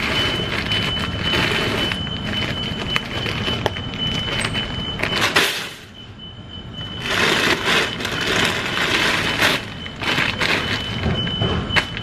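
Rustling and crinkling of large bags of dry dog food being pulled off a shelf and handled over a wire shopping cart, in repeated noisy bursts with a lull about halfway through. A steady high-pitched tone runs underneath.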